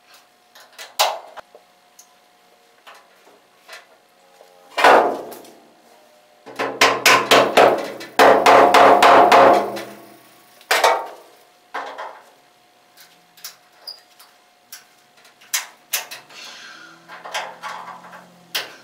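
Metal knocks and clanks from locking pliers being handled and clamped onto a steel fender trim piece, with a dense run of rapid metal-on-metal strikes in the middle, some of them ringing briefly.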